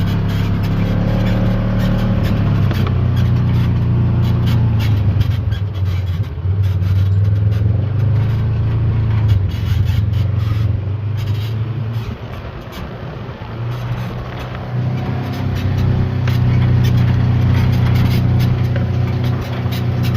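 A vehicle's engine running steadily at low speed, with knocks and rattles over it; it eases off about twelve seconds in, then picks up again.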